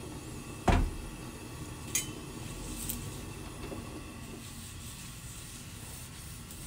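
Metal tongs knock sharply against a steel griddle about a second in, with a lighter click a second later, over a steady faint hiss as oil is wiped across the hot pan with a paper towel to season it.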